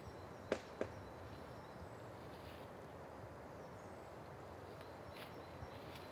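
Hands working through dry leaf litter on the forest floor: two sharp crackles close together about half a second in, then faint steady forest background.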